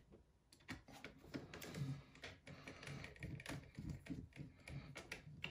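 Faint, irregular small clicks and rustles of a small screwdriver and fingers working on the logic board inside an opened MacBook Pro.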